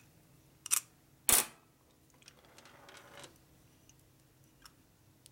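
Two sharp knocks of metal parts against a steel workbench as a carburetor is handled, the second louder and heavier, followed by faint rustling and a light click.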